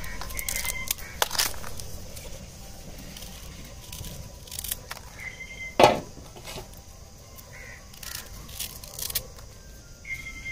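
Small knife scraping and stripping the fibrous husk off freshly dug palmyra sprouts, with scattered light clicks and scrapes and one sharper snap of fibre near the middle.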